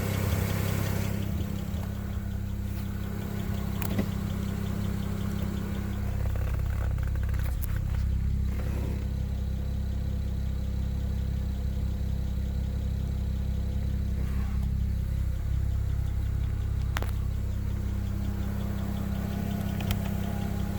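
The 2007 BMW 335i's twin-turbo inline-six engine runs steadily, with a few brief sharp clicks scattered through. The owner calls the intermittent noise a weird sound but has no cause for it.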